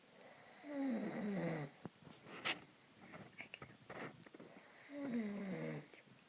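A man snoring in his sleep: two long snores about four seconds apart, each sliding down in pitch. A sharp click sounds between them.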